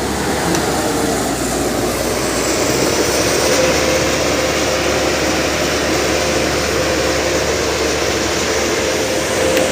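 Caterpillar 321B excavator running steadily at working revs, with a steady whine that grows stronger about three and a half seconds in.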